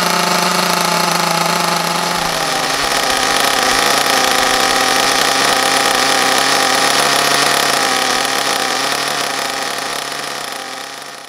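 HPI Pulse 4.6 buggy's .28-size nitro engine idling steadily, just brought back to life after months of disuse. Its pitch steps down slightly about two seconds in, then holds, and the sound fades out near the end.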